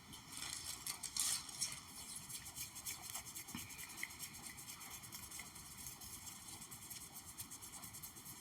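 Gentle ASMR tapping: a run of quick, light taps, a little louder in the first couple of seconds and then softer and steady.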